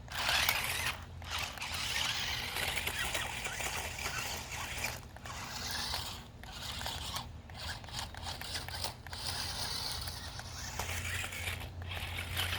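Toy remote-control stunt car's small electric drive motors and plastic gearboxes running in spurts as it is driven, with the wheels scraping. The sound cuts out briefly about six times as the control levers are let go.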